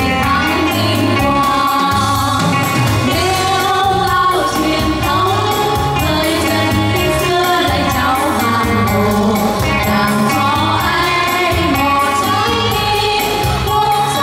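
Female vocal trio singing a slow Vietnamese patriotic song into handheld microphones, over backing music with a steady bass beat.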